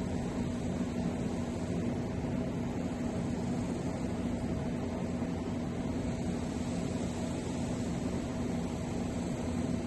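Steady hum and hiss that holds a low tone, unchanging throughout.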